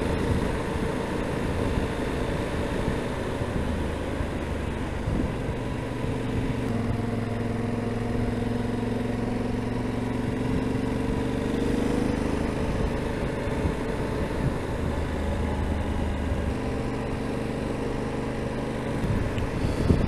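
Yamaha XT1200Z Super Ténéré's parallel-twin engine running under way, its pitch climbing and then stepping to a new level several times as the rider changes speed and gear, with steady wind and road rush over it.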